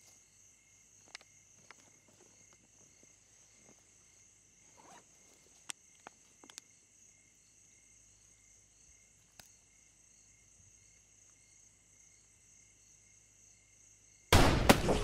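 Crickets chirring steadily in a quiet night ambience, with a few faint clicks and rustles. Near the end a sudden, very loud crash breaks in, with a second strike just after.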